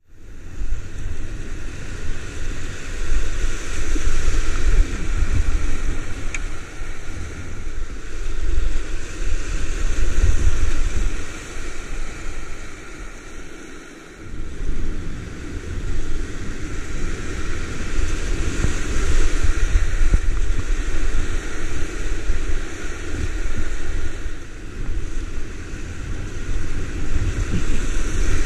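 Whitewater river rapids rushing past the paddleboard, with wind rumbling on the camera's microphone. It eases off for a few seconds about halfway through, on a flatter stretch of water, then builds again.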